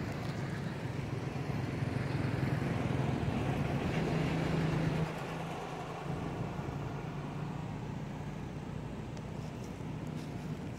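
A motor vehicle's engine running steadily, a low hum that grows louder and then drops off suddenly about five seconds in.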